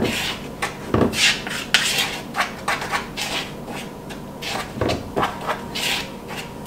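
Mixing spoon stirring flour, baking powder and salt in a bowl: gritty scraping strokes about twice a second, with the spoon knocking against the bowl about a second in and again near five seconds.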